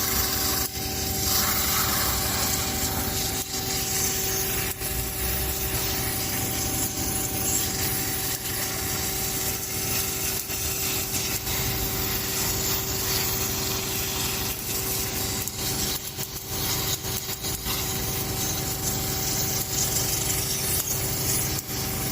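A machine running steadily, with a constant two-tone hum over a continuous rough, scraping noise.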